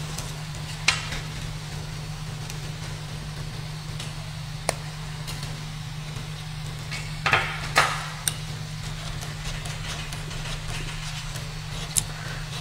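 Filament being handled and loaded into a Creality CR-6 SE 3D printer: a few sharp clicks and taps over a steady low hum, with a cluster of clicks past the middle.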